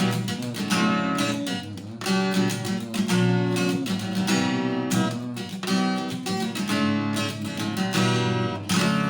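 Acoustic guitar strummed in a rhythmic pattern, the strokes damped with the palm and the chords changing as it goes; near the end a strum is left to ring.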